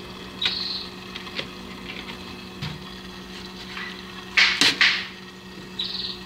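Handling noise as a mesh screen over a fish pond is pressed down and a plastic chain is laid on it to hold it: a few short scrapes and rustles, the loudest a brief cluster about four and a half seconds in. A steady low hum runs underneath.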